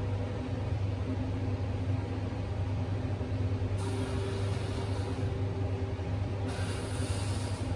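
Steady low electric hum with a machine whir, from kitchen appliances running, joined by two stretches of hiss: one about four seconds in and another near the end.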